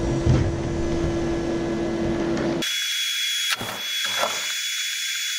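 Mosquito Magnet Patriot Plus trap's blower fan running with a steady hum and whine during its startup cycle. A little past halfway the low hum cuts out abruptly, leaving a high hiss with a thin steady whistle.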